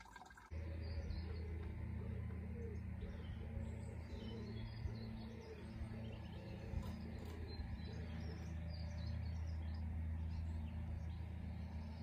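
Birds chirping over a steady low hum.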